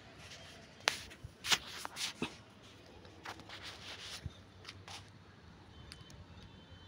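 Handling noise from a phone being moved while filming: scattered soft rustles and clicks, about half a dozen in the first five seconds, over a faint background hiss.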